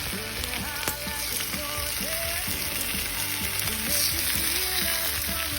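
Barramundi fillet sizzling steadily, skin side down on a preheated barbecue grill as the skin crisps.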